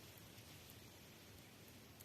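Near silence: a faint, steady background hiss with no distinct events.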